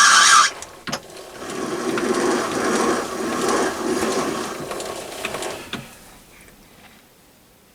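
A loud steady sound cuts off about half a second in. Then the gear train and lead screw of a Myford ML7 lathe click and rattle for about four seconds as the spindle is wound round by hand for a thread-cutting pass, dying away to quiet near the end.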